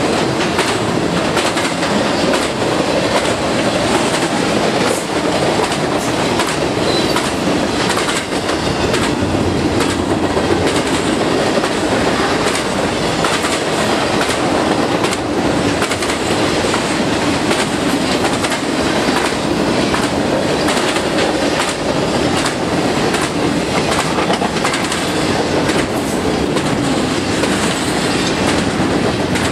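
Intermodal freight train cars rolling past, carrying trailers and double-stacked containers: steel wheels running on the rails with a steady rumble and repeated clickety-clack over the rail joints.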